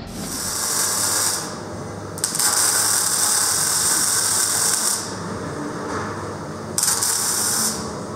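Electric arc welding on a steel narrowboat hull: the arc's hissing crackle comes in three runs, a short one at the start, a longer one of about two and a half seconds from two seconds in, and a brief one near the end. A steady low hum carries on between them.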